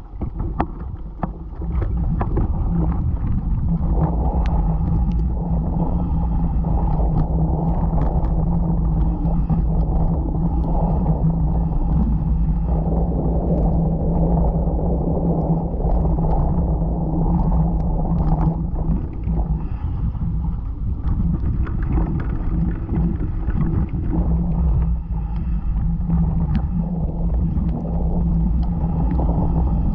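Mountain bike rolling down a gravel trail, heard from a camera mounted on the bike: a steady rumble of knobby tyres on gravel, with a low hum and many clicks and rattles from the bike and loose stones. It builds up over the first two seconds as the bike gets going.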